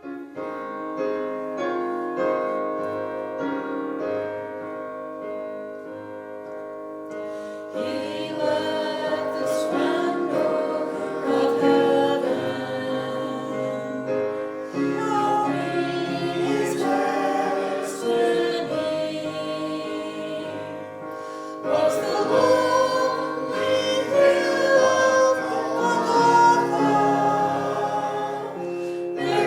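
Gospel music with singing: held chords play alone for the first several seconds, then voices come in about eight seconds in. The music gets louder about two-thirds of the way through.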